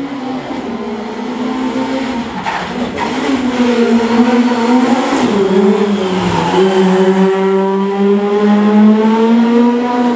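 Opel Adam rally car engine at high revs as the car comes close at racing speed. The engine note wavers, drops sharply about six seconds in, then climbs steadily and grows louder.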